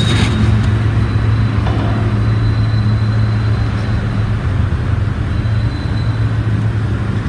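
Steady low electric motor hum, with a faint thin high whine above it that fades out about six seconds in. It is the switched-on overlock machine's motor running with the machine idle.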